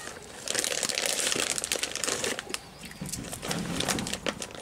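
A crinkling rustle, like plastic being handled, for about two seconds, followed by lighter scattered clicks and rustles.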